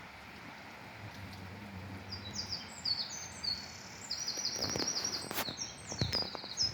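A small songbird singing: runs of quick, high, downward-sliding chirps, coming thick and fast in the second half, over a steady background hiss. A few sharp knocks sound about five to six seconds in.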